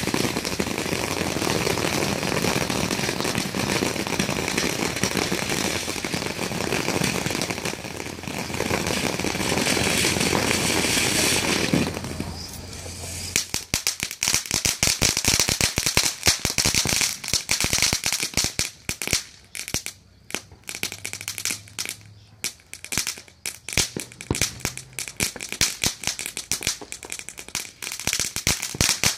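Ground fountain firework spraying sparks with a steady loud hiss, which drops away about twelve seconds in. About a second later dense crackling takes over: a fast, irregular string of sharp snaps and pops from a crackling fountain.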